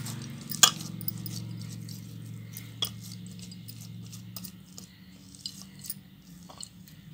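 Oiled hands kneading soft cooked rice-flour dough in a pan, with scattered sharp clicks and taps, the loudest about half a second in. A low steady hum underneath fades out about two-thirds of the way through.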